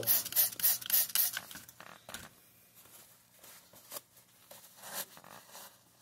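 Trigger spray bottle squirted in a quick run of short hissing sprays into an open metal condensate trap, lasting about the first second and a half. After that come a few scattered faint handling clicks and scrapes.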